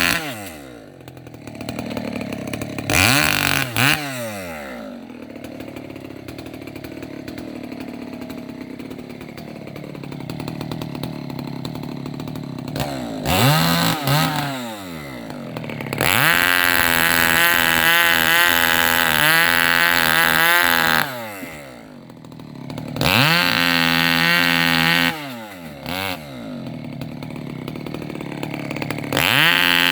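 Two-stroke chainsaw limbing a felled rubber tree: it idles between cuts and revs up to full throttle several times. The longest run at full revs lasts about five seconds, just past the middle.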